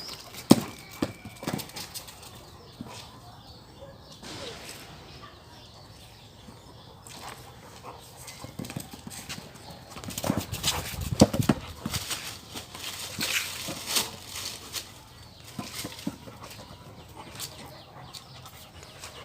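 A dog playing with a ball: scattered knocks, thumps and scuffling of paws, busiest about ten to fourteen seconds in.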